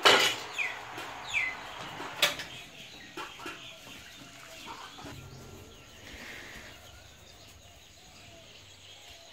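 Birds calling: several short, quick falling calls in the first two seconds, with a sharp knock a little after two seconds, then fainter background with scattered calls.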